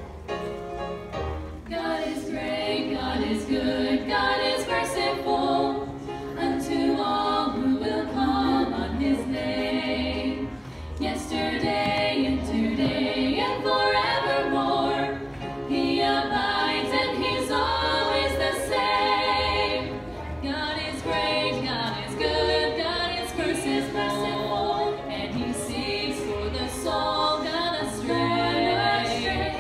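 Female gospel vocal trio singing a hymn in harmony into hand microphones.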